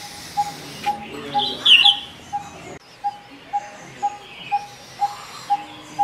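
Coppersmith barbet calling its repeated metallic 'tuk', one even note about twice a second. Another bird gives a louder chirping call about a second and a half in, and fainter higher chirps come and go.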